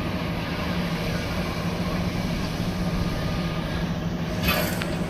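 Heavy diesel engine of a Sany SR235 rig running steadily, with a short hiss about four and a half seconds in.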